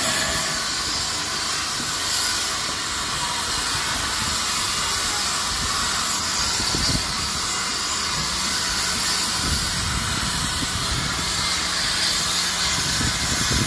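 Steam hissing steadily and loudly from a 1956 Fablok-built PKP class TKp (Śląsk) 0-8-0T tank locomotive in steam, with some low rumbling partway through.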